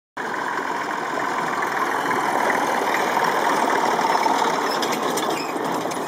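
Old farm tractor engine running steadily as it pulls a train of barrel carriages towards and past, getting a little louder as it nears.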